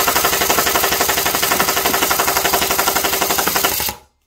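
Dboys M4 airsoft electric gun (AEG) on a 7.4 V battery firing a long full-auto burst: a rapid, even rattle of the gearbox cycling shot after shot. It cuts off abruptly about four seconds in.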